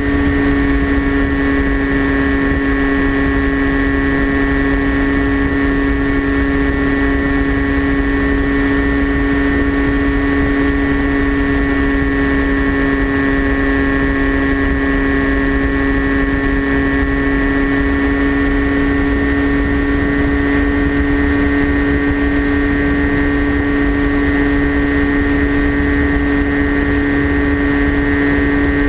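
Brushless electric motor and propeller of a TBS Caipirinha flying wing running at a steady cruise throttle: a constant buzzing whine whose pitch does not change, heard from the onboard GoPro, with a low rumble of wind on the microphone.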